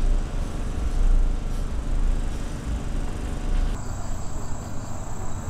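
A loud, uneven low rumble that stops suddenly nearly four seconds in, giving way to an insect's steady high buzzing trill.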